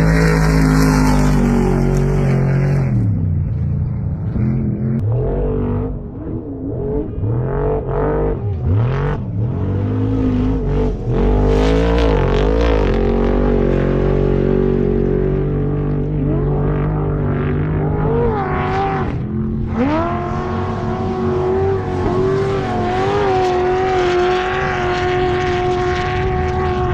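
Off-road race vehicle engines revving, their pitch climbing and dropping again and again as they accelerate and back off. About twenty seconds in, an engine rises sharply and holds a fairly steady high pitch.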